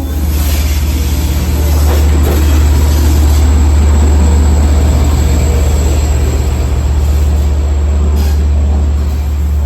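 Long Island Rail Road diesel push-pull train pulling into a station: a steady low diesel rumble under the running noise of wheels on rail, with a few brief clicks.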